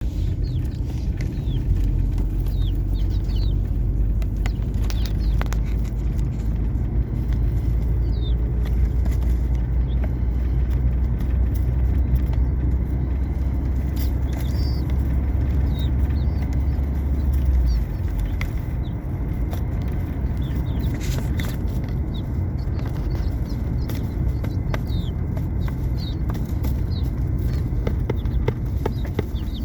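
Young chickens peeping and chirping over a steady low rumble that cuts off suddenly about eighteen seconds in.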